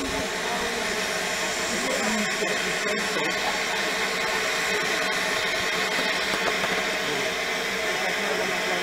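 Steady hiss of steam escaping from a narrow-gauge steam locomotive standing at the station.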